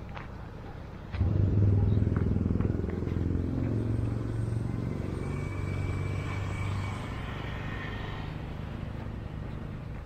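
A motor vehicle's engine close by, running with a low hum that starts suddenly about a second in and then slowly fades.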